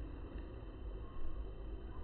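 Steady, low rumbling background noise with no distinct sound event.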